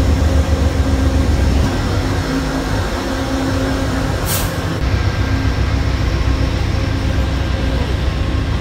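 Amtrak passenger train running, with a steady low rumble and hum. A short sharp hiss comes about four seconds in.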